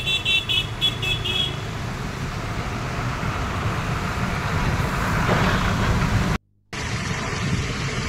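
Road traffic running on a waterlogged street, with a vehicle horn beeping rapidly, several short high beeps, for about the first second and a half. The sound drops out for a moment near the end.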